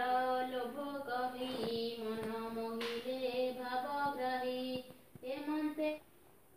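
A woman singing a devotional prayer unaccompanied, in long held notes, with a few soft clicks in the middle. The singing stops about six seconds in.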